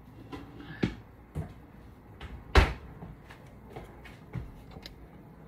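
Kitchen cookware being handled: a few separate sharp knocks and clacks, the loudest about halfway through.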